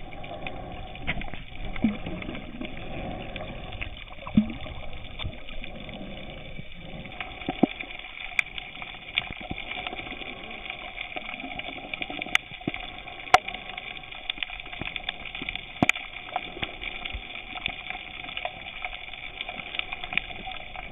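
Underwater ambience picked up by a small camera held below the surface: a steady muffled water hiss with scattered sharp clicks.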